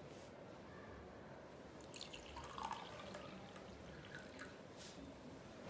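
Water being poured from a plastic cup into a glass tumbler: a faint trickle with drips and small splashes from about two seconds in.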